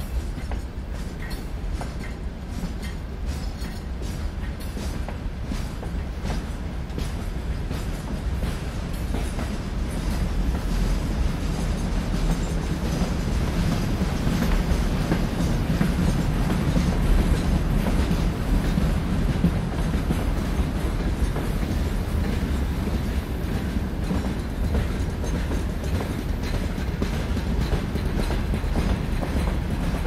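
Freight train rolling on the rails: a heavy continuous rumble with the clicking of wheels over rail joints, growing louder from about ten seconds in.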